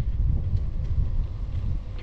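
Wind buffeting the microphone of a moving action camera, a steady low rumble mixed with road noise.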